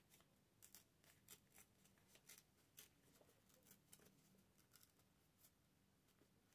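Faint, irregular small crackles of a piece of white paper being torn slowly by hand, a little at a time.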